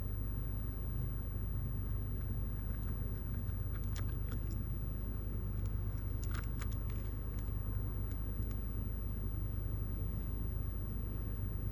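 A steady low hum, with a few light clicks and scrapes about four to seven seconds in.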